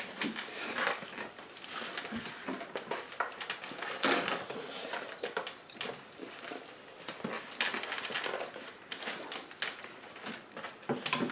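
Eating sounds: a burger being chewed and handled, with irregular crackles and clicks throughout.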